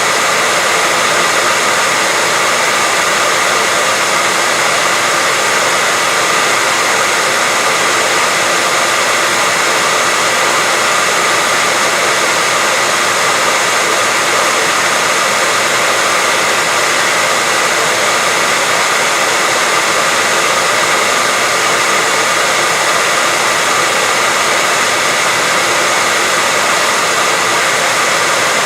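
Steady white-noise hiss, even and unchanging, bright and airy rather than deep, with a faint steady hum of tones within it.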